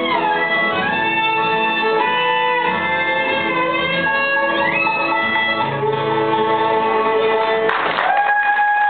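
Bluegrass band playing fiddle and guitar, the fiddle sliding up and down between notes. The tune ends on a held note, and applause breaks out near the end.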